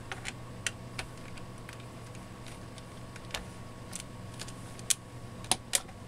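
Scattered light clicks and taps of a hand screwdriver and fingers on a laptop's plastic underside while its screws are worked loose, with three sharper clicks close together near the end.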